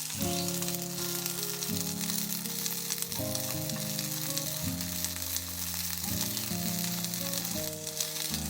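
Food sizzling in a frying pan, a steady hiss, with background music.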